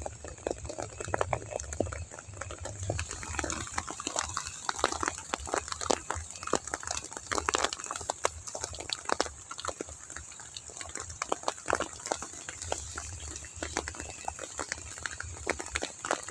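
Heavy rain: a dense, irregular patter of drops striking close by, with a low rumble underneath.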